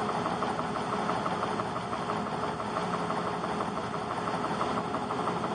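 Stationary edge belt sander running with a steady hum while a wooden board is pressed against the moving sanding belt and sanded.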